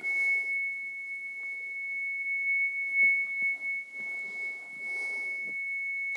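Steady 2.5 kHz sine test tone played through a 1970 Fisher three-way speaker: one high, unchanging pitch.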